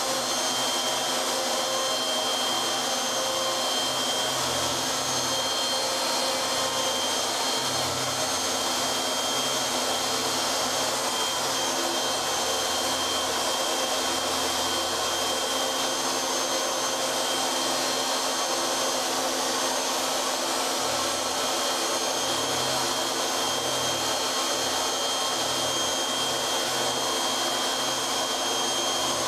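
CNC router spindle running with a steady high whine as its end mill cuts a pocket in a block. Beneath it, a lower hum shifts in pitch every few seconds as the tool moves.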